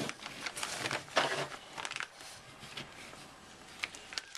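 Thin plastic bag crinkling and rustling in irregular bursts as it is handled and opened, louder in the first half.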